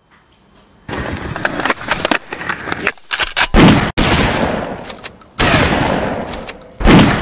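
Title-card sound effects. Nearly silent at first, then about a second in a rapid rattle of sharp cracks like machine-gun fire begins. Several heavy hits with long decaying tails follow.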